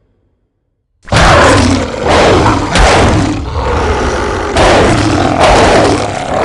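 Silence for about a second, then a loud recorded beast roar and growl starts suddenly and swells in several surges.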